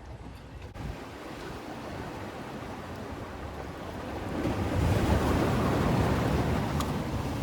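Sea waves washing in, building to a louder surge about two-thirds of the way through, with wind buffeting the microphone.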